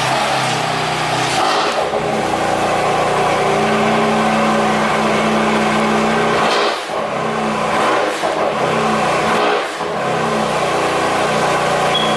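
A motor running steadily and loudly, its note dropping off briefly twice, about seven and ten seconds in.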